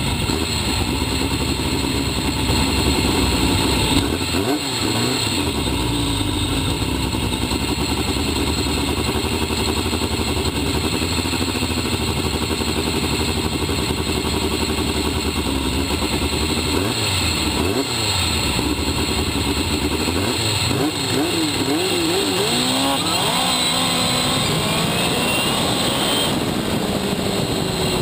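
Turbocharged VW engine of a sand drag car running close to the onboard microphone, mostly at a loud steady idle, with short throttle blips a few seconds in, past the middle, and a quick series of revs toward the end.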